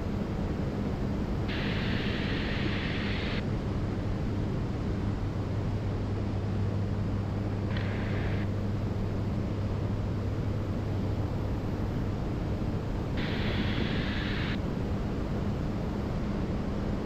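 Light piston aircraft in cruise: the steady drone of engine and propellers with a low hum and a rush of air. Three brief higher-pitched hissy bursts cut in and out over it, the first two seconds long, the second under a second, the third about a second and a half.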